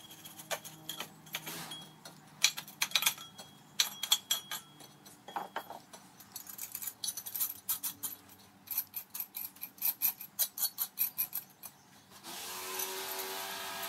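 Scraping, clinking and a quick run of knocks as a freshly poured metal casting is dug out of its sand mould and the sand is knocked off it. About twelve seconds in, a steady motor hum with a whine starts up.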